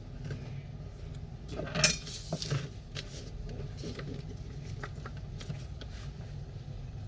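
Light clicks and taps of small hard objects being handled, with a brief louder rattle and scrape about two seconds in, over a steady low hum.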